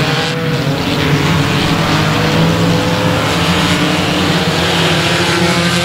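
A pack of front-wheel-drive ecostock race cars racing on a dirt oval, several engines running hard at once with their pitches overlapping and shifting up and down.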